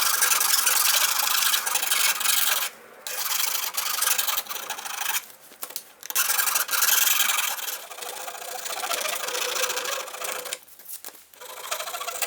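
Abrasive rubbing on wood, as in sanding a workpiece. It runs in long stretches with brief pauses about three seconds, five and a half seconds and eleven seconds in, and stops just after the end.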